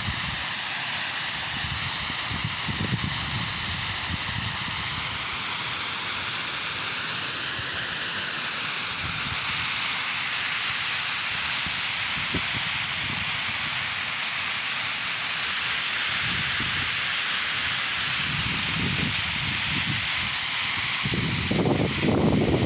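Waterfall: steady rushing of falling water, with irregular low rumbles that grow loudest near the end.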